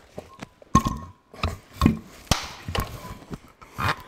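About six knocks and clunks from handling a removed Ferguson 23C diesel cylinder head, one of them about a second in with a short metallic ring.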